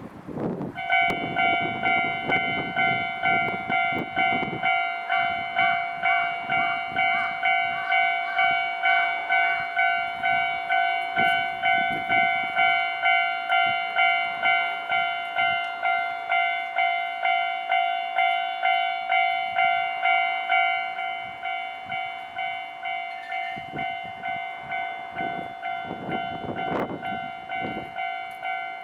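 Japanese railway level-crossing warning bell: an electronic alarm starts about a second in and rings steadily in a quick pulse of about two strikes a second. It becomes somewhat quieter about three quarters of the way through.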